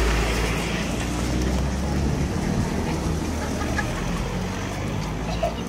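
A motor vehicle's engine running close by, a steady low hum under street traffic noise.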